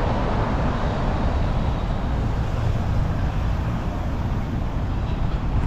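Steady road traffic noise from cars on the adjacent avenue, an even low rumble with no distinct events.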